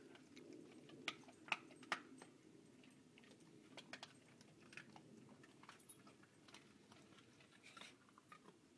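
Airedale terrier crunching raw bone: a few sharp cracks in the first two seconds, then softer, scattered chewing clicks.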